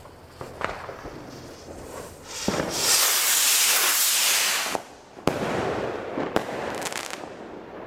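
Weco Highspeed-Bombs firework rockets launching: a loud rushing hiss for about two seconds as they climb. Then a sharp bang just after five seconds in as a bursting charge breaks, followed by two lighter bangs.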